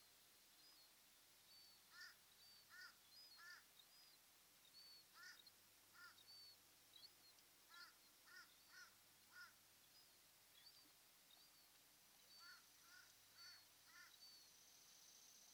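Faint bird calls: short, harsh calls repeated in runs of two to four, about half a second apart, over fainter high chirps that keep repeating and a steady hiss.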